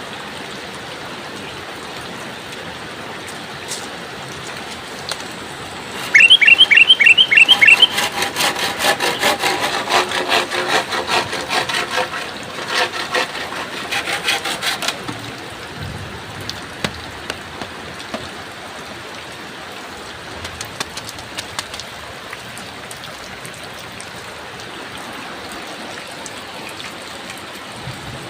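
Steady heavy rain falling. About six seconds in, a loud run of about six quick rising chirps starts a fast, evenly pulsing sound that lasts until about fifteen seconds in. After that only a few scattered clicks sound over the rain.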